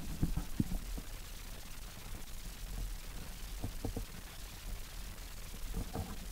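Handling noise on a 360 camera as it is moved among rhododendron branches: scattered light knocks and scrapes over a steady low rumble, with clusters near the start, around the middle and near the end.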